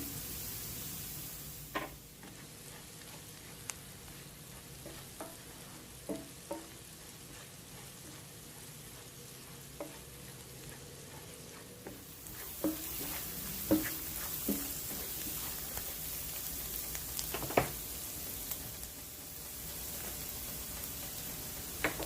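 Food sizzling in a pan, the hiss softer for several seconds and then louder again, with scattered clinks and knocks.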